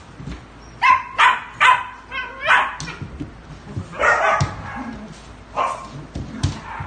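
Dogs yelping and barking in rough play, with a quick run of short, sharp yelps about a second in and more cries spaced through the rest.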